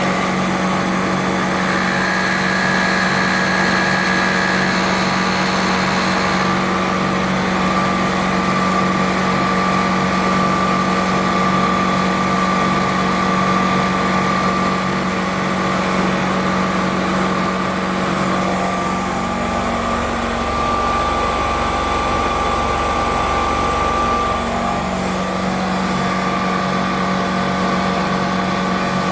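Milling machine running while cutting a bicycle sprocket: a steady motor hum with a thin high whine. For several seconds past the middle, a deeper rumble swells and then settles back.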